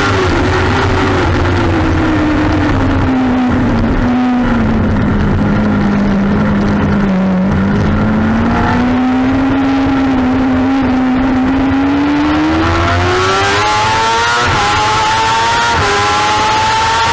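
2007 Kawasaki ZX-6R's inline-four engine under race riding. The engine note sags for the first half through a leaned-over turn, then climbs steadily down the straight, with brief dips at a couple of gear changes near the end.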